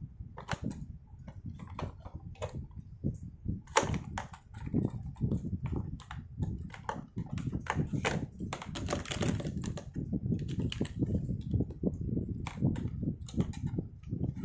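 Plastic markers and pens clicking and clattering against each other and the desk as a handful is gathered up and handled, in an irregular run of small knocks.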